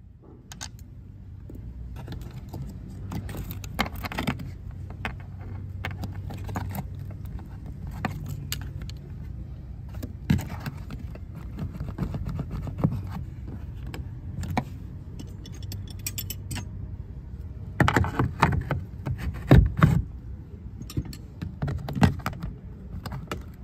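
Irregular plastic and metal clicks, knocks and rattles from hands working a power window motor loose and pulling it out of a 2016 Dodge Caravan's door, with a burst of louder knocks near the end, over a steady low rumble.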